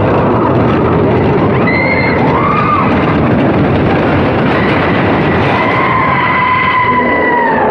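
Expedition Everest steel roller coaster train running fast along its track through a dark tunnel: a loud, steady rumble of wheels and rushing air. A high tone rises and falls briefly about two seconds in, and a long high held tone starts about five seconds in and sags slightly near the end.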